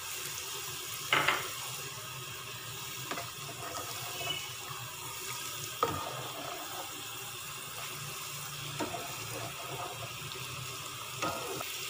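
Spoon stirring sugar into simmering milk-and-rice carrot kheer in a metal pot, over a steady watery hiss, with a few clinks of the spoon against the pan.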